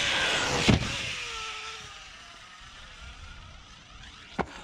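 Traxxas Sledge RC monster truck's 8S-powered brushless motor and drivetrain whining over a rush of wind, a hard thud about two-thirds of a second in, then the whine falling in pitch and fading. The driver takes the whine for a differential going out.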